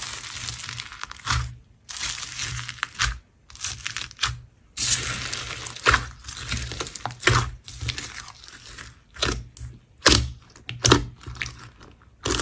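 Slime being squished and pressed, crackling in repeated bursts about a second long, separated by short pauses.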